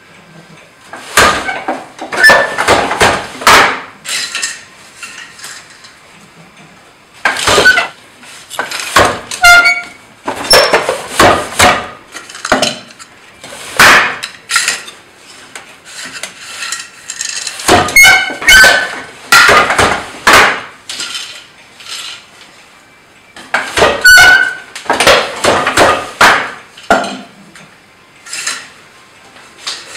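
Wooden hand loom being worked: bursts of several sharp wooden knocks and clatter every few seconds as the beater is pulled against the cloth and the shuttle and frame parts move, with short pauses between.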